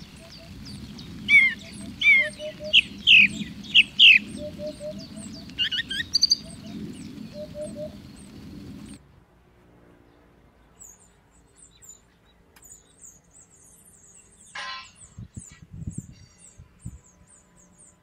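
Bird chorus: several loud, clear downslurred whistles in the first few seconds over busy background song, with soft low hooting notes in twos and threes. About halfway the sound cuts to a quiet run of thin, high chirps, with a brief rasp and a few dull thumps near the end.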